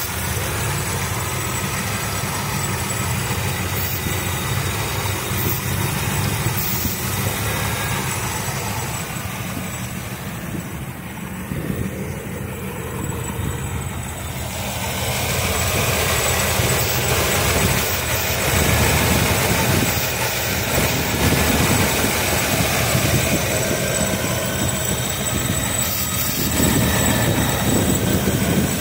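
Carbureted engine idling steadily, getting somewhat quieter around ten seconds in and louder again from about fifteen seconds on.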